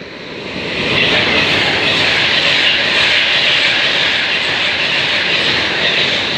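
Avanti West Coast Class 390 Pendolino electric train passing through the station at speed without stopping: a loud rush of wheels on rail and air that builds over the first second, holds, and eases slightly near the end.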